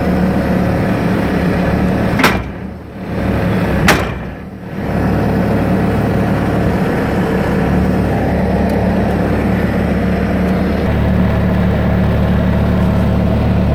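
Bobcat S300 skid-steer loader's diesel engine running steadily. Two sharp clicks come about two and four seconds in, each followed by a brief dip in the engine sound.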